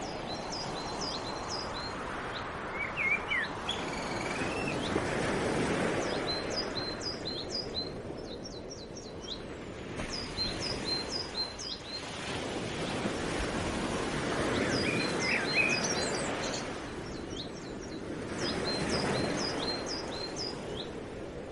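Small birds chirping in quick runs of short, high notes over a wash of outdoor noise that swells and fades every few seconds.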